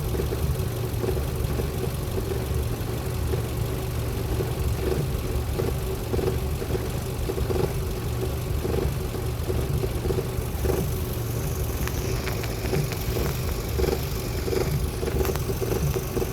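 Ford Focus 1.6 16v four-cylinder engine running steadily, with a recurring strange noise over it, short pulses repeating roughly every half second to a second. The owner suspects plastic parts rubbing in the engine bay. From about ten seconds in, a high hiss with faint ticks joins it.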